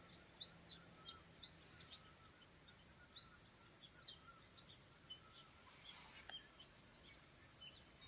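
Faint outdoor ambience: a steady high-pitched insect drone with many short, faint bird chirps scattered through it.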